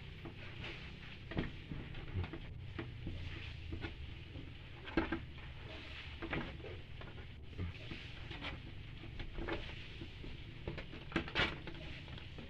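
Scattered light taps, scratches and scrapes on a wooden board as a hand moves about on it, with phone handling noise, over a low steady hum. The sharpest taps come about five seconds in and again near the end.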